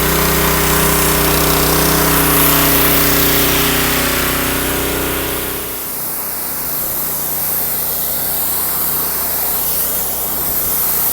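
Gas-engine pressure washer running, its steady engine hum under the loud hiss of the water spray. About six seconds in the sound changes abruptly: the deep engine hum drops away and a thinner hiss with a single steady hum goes on.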